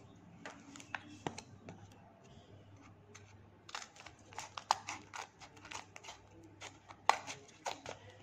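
Scissors snipping through a paper blind bag: a run of short, sharp cuts and paper rustles, thickest about four to five seconds in and again near the end.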